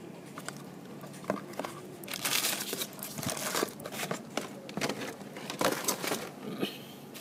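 Packaging in a cardboard tablet box being handled: irregular rustling and crinkling with small clicks and knocks, busiest from about two seconds in.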